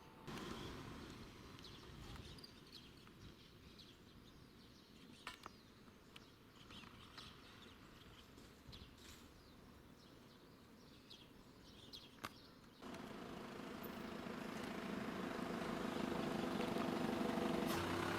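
Quiet outdoor background with scattered faint chirps and clicks. About two-thirds of the way in, a motor vehicle's engine comes in suddenly and grows steadily louder as it approaches.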